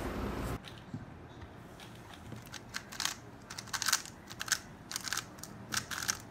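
A 3x3 speedcube being turned rapidly during a timed solve: an irregular run of sharp plastic clicks and clacks, many coming in quick bunches.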